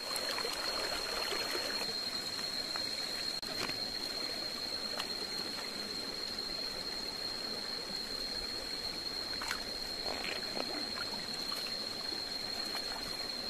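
Water running and trickling steadily, with a steady high-pitched insect drone over it and a few faint clicks.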